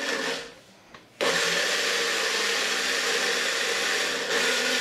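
Prestige PEX 2.0 350-watt mixer grinder pulsed to grind dry whole red chilies and spices into powder in its small jar: a short run that winds down in the first half second, a brief pause, then a steady grinding run from about a second in, its tone shifting slightly near the end.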